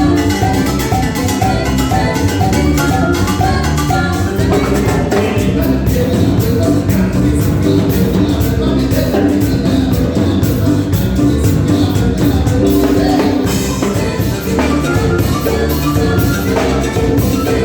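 A Latin band playing live, with drums and pitched instruments keeping up a steady rhythm.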